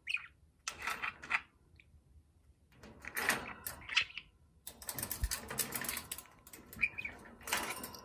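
Budgerigar chattering and warbling in scratchy, irregular bursts with short pauses between, busiest in the second half.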